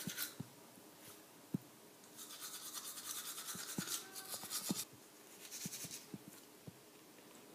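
Manual toothbrush scrubbing teeth in quick back-and-forth strokes. There is a short spell at the start, then a pause, then a longer spell from about two seconds in to nearly five seconds, with a few soft knocks in between.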